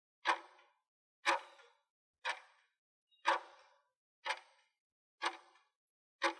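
Countdown timer ticking sound effect: one sharp clock tick each second, marking the seconds running out on the on-screen countdown.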